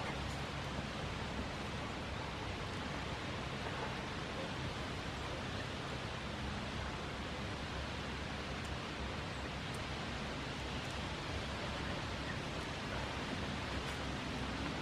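Steady, even background hiss of outdoor noise with a few faint ticks, and no voices or animal calls.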